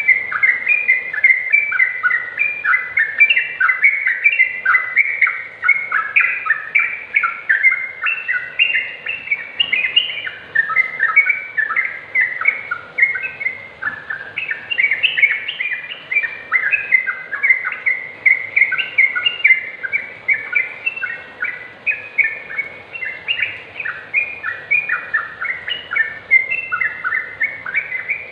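Yellow-vented bulbul singing in full voice: a continuous stream of quick, short chattering notes without a break.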